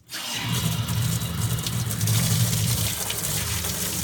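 Water running hard from a tap into a bathtub to rinse out bath bubbles, with a steady low hum underneath. It starts suddenly and keeps running.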